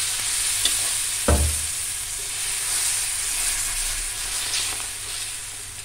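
Besan chilla batter sizzling on a hot iron tawa just after it is poured, as a steel ladle spreads it out. The sizzle slowly dies down, with one short knock about a second in.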